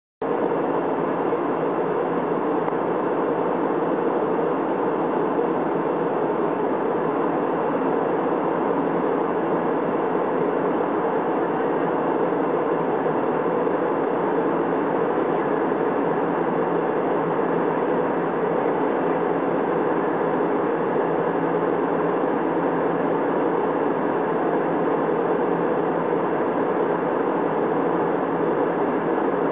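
Jet airliner cabin noise in flight: a steady drone of engines and rushing air that cuts in suddenly at the start.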